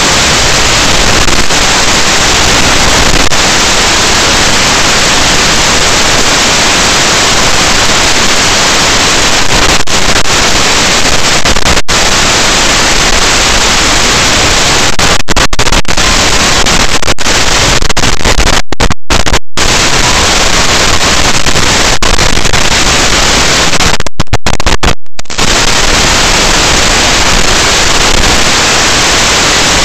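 Loud, steady static hiss from an analog FPV video receiver's audio channel, cutting out completely for brief moments a few times in the second half.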